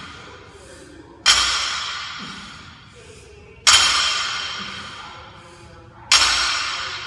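Loaded barbell plates striking the gym floor as each deadlift rep is set down, three sharp clanks about two and a half seconds apart, each ringing and echoing away slowly.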